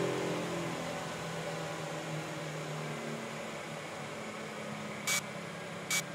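Steady hiss with a low hum. A pitched whir dies away within the first second, and two short sharp clicks come near the end, under a second apart.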